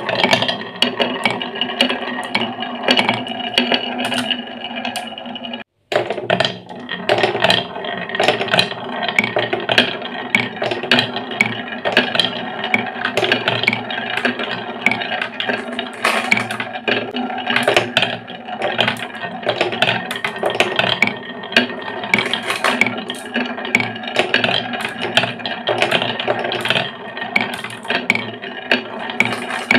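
Glass marbles rolling and clattering down carved wooden marble-run tracks, a dense, continuous stream of clicks and knocks as they run along the grooves and bump the wooden walls and each other. The sound cuts out abruptly for a moment about six seconds in.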